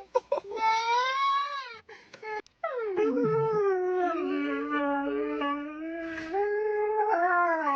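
A dog howling: a short howl, then a long wavering one that slides down in pitch and holds.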